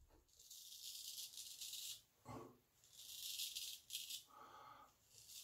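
Straight razor scraping through lathered stubble on the neck: a faint, raspy scrape, one longer stroke and then a couple of shorter ones. The edge is cutting but a bit tuggy.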